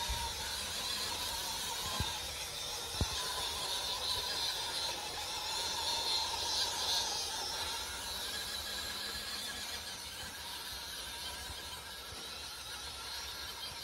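Electric drive motor and gearbox of an MN D90 RC Land Rover Defender 90 crawler whining steadily as it drives through loose sand, strongest about four to seven seconds in. Two short clicks come about two and three seconds in.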